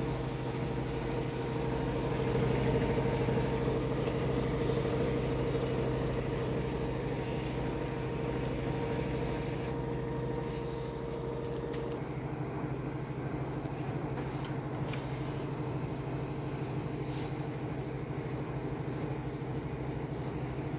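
Washing machine in its spin cycle: a steady motor-and-drum hum with a constant tone, the tone changing about twelve seconds in as one pitch drops out.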